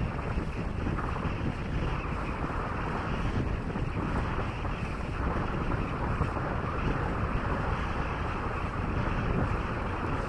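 Wind buffeting the microphone on the bow of a Linssen Grand Sturdy motor yacht under way, over a steady rush of water along the hull. The noise is continuous and gently fluctuating, with no distinct engine note.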